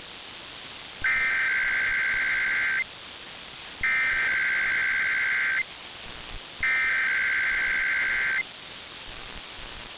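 Emergency Alert System SAME header: three bursts of rapid two-tone digital data, each just under two seconds long and about a second apart, over a steady broadcast hiss. The bursts are the coded header that opens an EAS test message.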